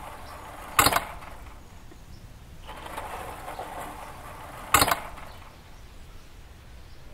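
Wooden railway level-crossing gates being swung across by hand, each swing rattling and ending in a loud bang as the gate strikes its post. This happens twice: about a second in and again just under five seconds in.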